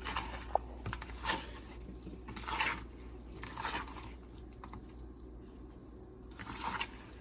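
Hands mixing raw shrimp with seasoning in a bowl, making about five short wet sounds spread over a few seconds.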